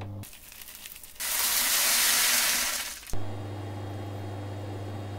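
A loud hiss lasting about two seconds, then a click and a Wellzoom desktop filament extruder running with a steady low hum as it pushes out melted polystyrene-foam filament.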